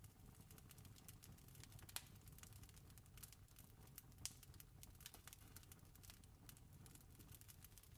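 Wood fire crackling faintly, with a steady run of small pops and two louder snaps about two and four seconds in, over a low steady rumble.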